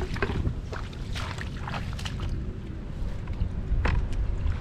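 Low wind rumble on the microphone, broken by a few short, sharp noisy sounds, most of them in the first half and one near the end.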